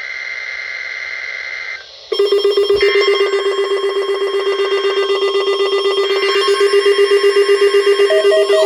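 EAS Required Weekly Test on NOAA Weather Radio: a short burst of high electronic data tones (the SAME header). Then, about two seconds in, a loud, buzzy electronic alert tone starts and pulses rapidly and evenly.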